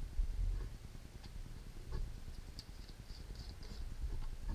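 Faint scattered clicks and light knocks of objects being handled at a workbench, with a soft knock near the start and another near the end.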